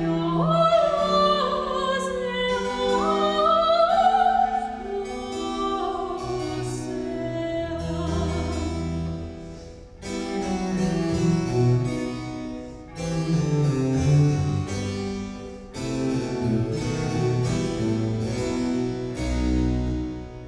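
Soprano singing a Baroque cantata with vibrato, accompanied by harpsichord and baroque cello. About a third of the way in her voice drops out, and the harpsichord and cello play on alone.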